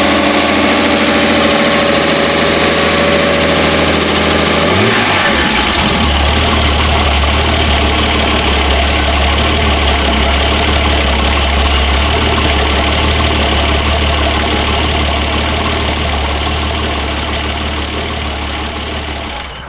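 Volvo Penta AQ170 marine engine, a B30 straight-six, idling, then picking up speed about five seconds in and running steadily at the higher speed.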